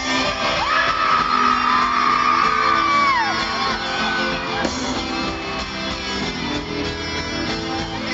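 Live pop-rock band playing a song with electric guitars and drums, heard from within the audience in a large hall, with shouts from the crowd over the music.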